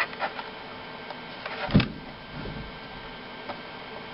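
Small plastic clicks as a laptop's memory access panel is pulled off the underside of the case, with one louder knock a little under two seconds in.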